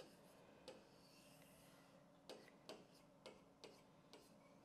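Faint, short ticks and scratches of a pen drawing circles and letters on a board, about eight of them spaced irregularly.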